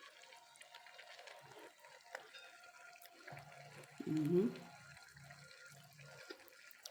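Someone tasting food: faint clinks and mouth sounds, with a short "mmm" of approval about four seconds in, over a faint steady background hiss.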